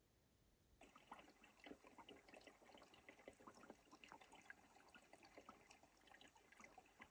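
Faint water trickling and dripping among rocks: a soft, irregular patter that begins about a second in after near silence.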